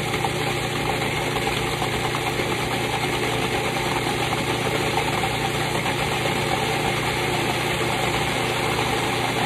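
Old Cuisinart food processor running steadily, its motor and blade puréeing a wet green mix of cilantro, garlic, peppers and onion into sofrito.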